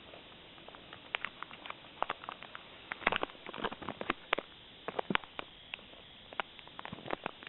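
Plastic packaging around a small wall charger being handled and unwrapped: irregular crinkling and crackling clicks, starting about a second in, with the busiest stretches around the middle and again near the end.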